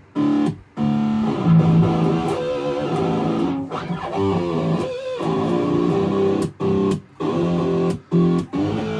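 Jackson seven-string electric guitar played through an amp, notes and chords cut off abruptly several times by a Tesi kill switch, giving a choppy, stuttering sound.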